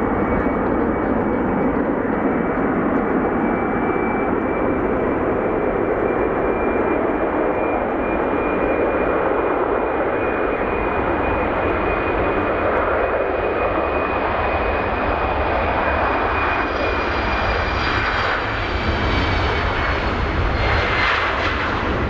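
Embraer E195LR's two GE CF34-10E turbofans at takeoff thrust during the takeoff roll: a steady, loud rush of jet noise with a high fan whine. The whine falls slightly in pitch near the end as the jet passes.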